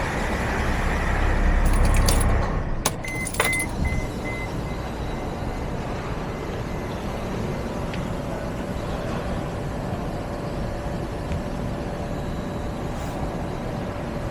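A Mercedes Sprinter's diesel engine runs with a heavy low rumble for the first two seconds, then settles to a quieter, steady running. A couple of sharp clicks and a short beeping tone come about three seconds in.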